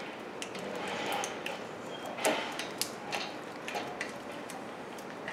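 Small metallic clicks and taps from the brake caliper's mounting bolts and hardware being handled and started by hand, with a slightly louder cluster of clicks a little past two seconds in.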